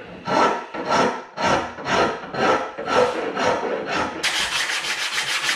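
A wooden saw handle being smoothed by hand with an abrasive tool: steady rubbing strokes, about two a second, turning after about four seconds into faster, shorter strokes.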